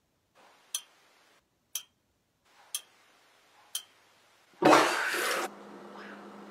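Clock-like ticks, one a second, four times, counting off the seconds. About four and a half seconds in they give way to a loud rushing burst of noise lasting nearly a second.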